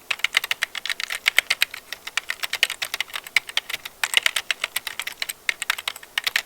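Typing on a computer keyboard: a rapid, uneven run of key clicks, several a second, with a couple of short breaks.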